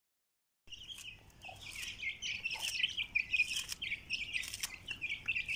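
A brood of chicks peeping continuously as they feed, starting about a second in, with a few sharp clicks mixed in.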